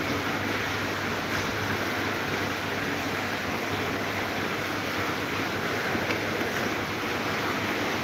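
Electric fans running: a steady rush of moving air with a low, even motor hum underneath.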